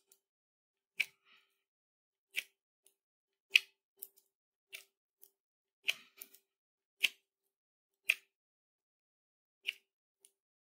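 Sharp metallic clicks, about one a second and slightly uneven, from a steel intramedullary pin and its hand chuck being twisted as the pin is driven down the tibia's marrow cavity.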